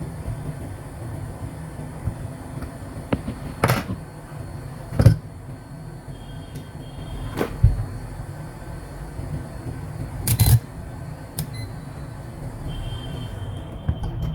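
Steady low rushing hum of bench rework work on a laptop motherboard while a capacitor is replaced, broken by a few sharp taps and clicks about four, five, seven and a half and ten seconds in.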